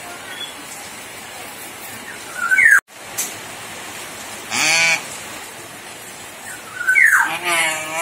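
Common hill myna calling: a rising whistle about two and a half seconds in, a short wavering call a little later, then another rising whistle running into a longer wavering call near the end.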